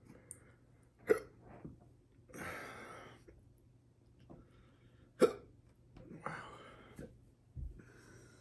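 A man hiccupping from the heat of a chocolate ghost pepper: two sharp hiccups about four seconds apart, about a second in and about five seconds in, each followed by a breathy exhale.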